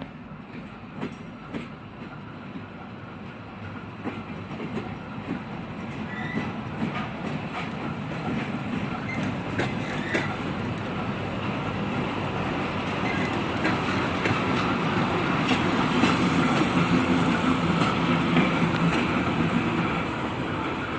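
ChME3 diesel-electric shunting locomotive rolling in reverse, its diesel engine running and wheels clicking over the rail joints, growing steadily louder.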